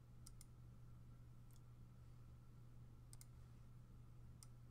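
Computer mouse clicking: a quick double click about a third of a second in, a single click at about a second and a half, another double click around three seconds, and a single click near the end. A faint steady low hum runs underneath.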